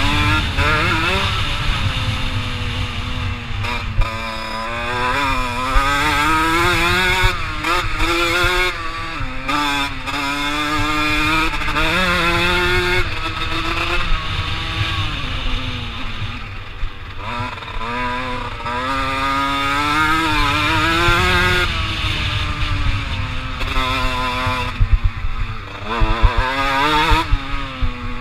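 Kawasaki KX125 two-stroke single-cylinder engine being ridden hard, its pitch climbing and dropping again and again as the rider opens and closes the throttle through the gears. There is a low wind rumble underneath and a few sharp knocks near the end.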